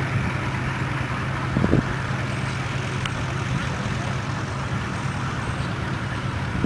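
Antique tractor engine running steadily with a low, even hum, with a couple of brief knocks about one and a half seconds in.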